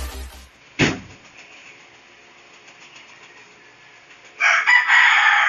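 A rooster crowing loudly near the end, following low hiss and a single short knock about a second in. Music fades out at the very start.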